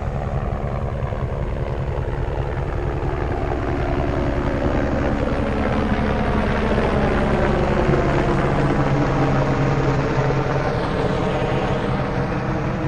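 Helicopter flying low overhead, its rotor and engine running steadily. The sound grows a little louder toward the middle as it passes over and eases near the end as it moves away.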